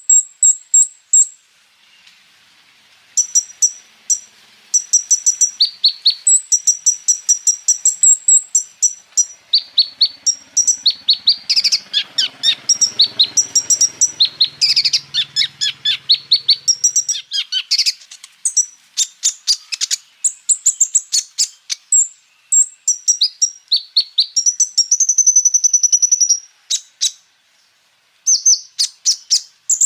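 Kolibri ninja (konin) sunbird singing a fast, high-pitched run of rapid repeated notes and chattering trills, laced with other birds' calls that it imitates. The song pauses briefly about two seconds in and again near the end.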